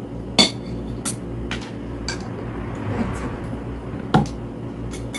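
Dishes and kitchen utensils clinking: a series of sharp clinks, the loudest about half a second in and again about four seconds in.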